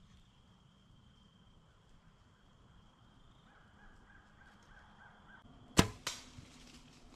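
Mathews compound bow being shot: one sharp crack about six seconds in, then a second, softer smack about a third of a second later.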